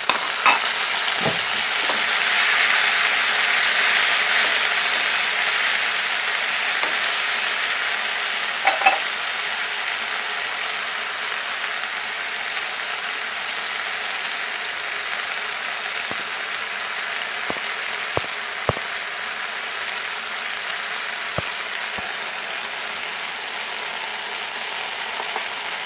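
Fried onions with freshly added chili and spice paste and water sizzling and bubbling in hot oil in a frying pan. The steady hiss is loudest in the first few seconds and slowly eases, with a few faint clicks here and there.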